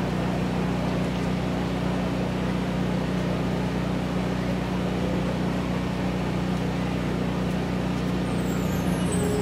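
Steady open-air stadium background noise with a constant low hum while the marching band holds still before its show. Near the end, high shimmering chimes from the front percussion begin to ring.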